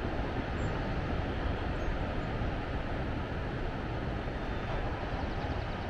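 Steady rushing noise of coastal wind on the microphone, mixed with the surf breaking on the beach below.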